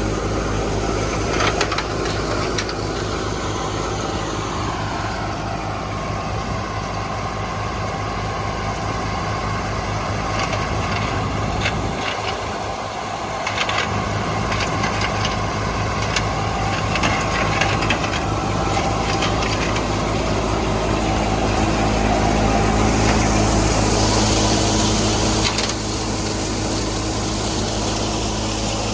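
Clayson 8080 combine harvester running steadily, its diesel engine humming with scattered clicks and rattles from the machinery. About 22 seconds in the sound swells louder and brighter, then drops back shortly before the end.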